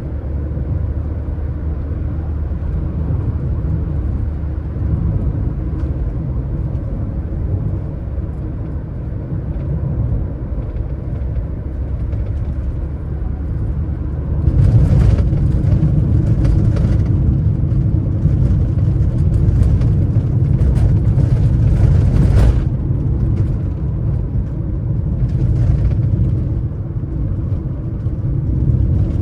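Car driving along a road: a steady low rumble of tyres and engine. It grows louder and rougher about halfway through for several seconds, then eases back.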